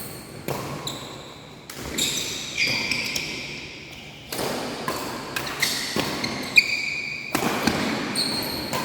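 Badminton being played in a large indoor hall: a string of sharp racket strikes on the shuttlecock, with short high-pitched squeaks of sports shoes on the court floor, echoing in the hall.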